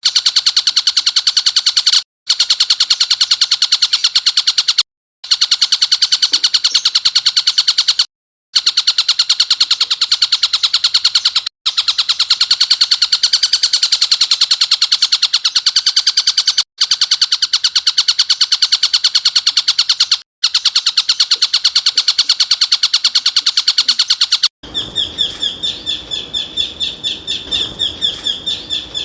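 Songbird singing a very rapid, high, buzzing trill in long runs of two to five seconds, each broken by a brief pause. Near the end it switches to a slower chattering call of separate notes.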